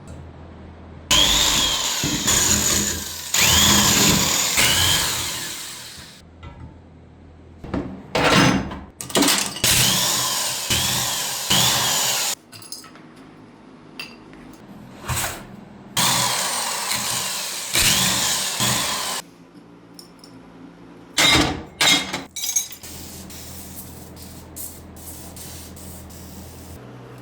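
A handheld power tool run in several bursts of a few seconds each, with short pauses between. Its pitch rises and falls within each burst.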